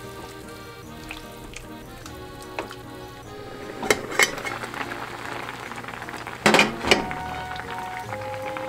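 Daikon simmering in broth in a frying pan, with a metal pan lid clinking against the pan: two sharp clinks about four seconds in and a louder clatter a little before seven seconds. Light background music plays throughout.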